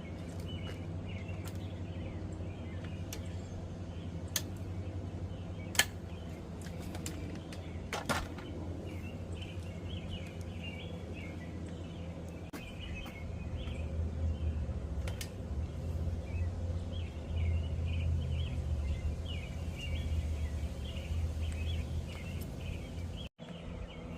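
Birds chirping repeatedly over a steady low background rumble that grows louder about halfway through, with a few sharp clicks around four, six and eight seconds in.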